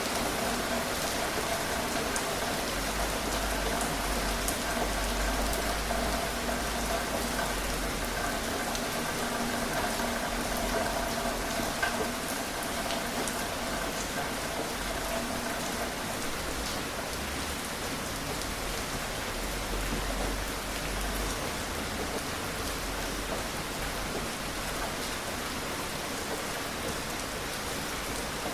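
Steady rain falling on a surface, a dense even hiss with scattered individual drops. Faint steady hum tones underneath fade out about halfway through, and a low rumble swells in and out twice.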